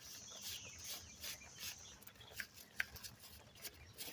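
Wire brush scrubbing rust off a brake caliper in short, scratchy strokes with a few light clicks. Over the first two seconds a thin, high whistle with short falling notes sounds alongside.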